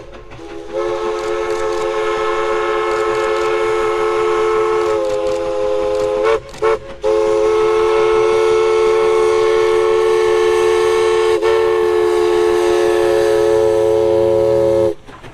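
East Broad Top narrow-gauge steam locomotive No. 16 blowing its multi-tone steam whistle, a chord of several notes, as it approaches a road crossing. It sounds long blasts broken by a quick short toot about halfway through, then a final long blast that cuts off suddenly near the end. A low rumble of the oncoming engine builds under the last blast.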